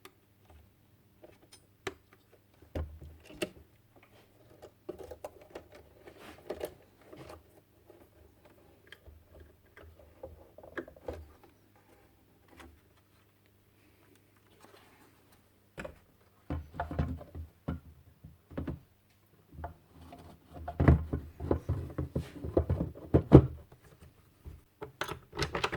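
Scattered clicks, knocks and rustling of plastic and metal radio parts being handled and fitted together during reassembly. The handling is sparse at first and gets busier and louder in the second half, over a faint steady low hum.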